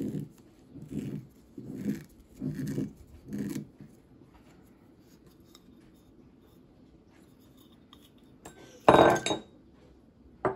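Foil capsule being torn off a whisky bottle's neck: five short crinkling tears in the first few seconds. Near the end, a loud knock as the glass bottle is set down on a wooden table.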